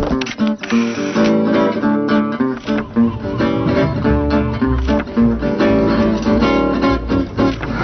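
Instrumental music led by plucked acoustic guitar, with a bass line coming in about halfway through.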